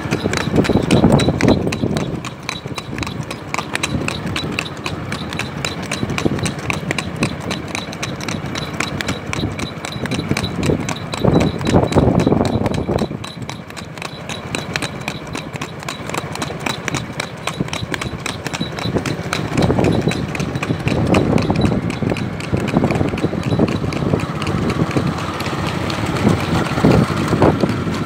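Horse's hooves clip-clopping on asphalt at a brisk gait, a fast, even run of hoofbeats. A louder, lower noise swells underneath now and then.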